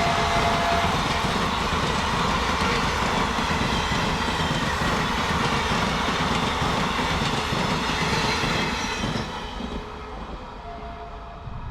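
Express train of ICF passenger coaches passing at speed: a steady rush and clatter of wheels on the rails, dropping off about nine seconds in.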